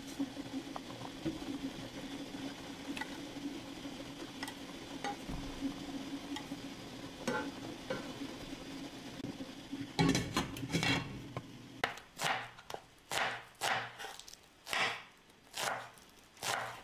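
Utensil stirring and scraping food in a pan: scattered light clicks at first, then a run of about seven separate scraping strokes in the last five seconds, over a steady low hum.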